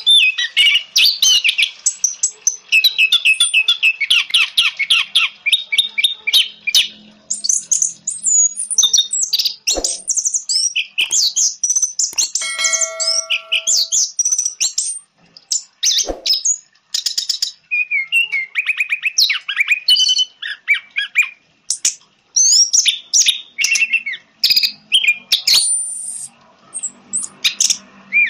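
Orange-headed thrush (anis merah) singing a fast, varied song of rapid trills and high twittering phrases, broken by sharp clicks. About halfway through there is a steady held tone lasting a second or so.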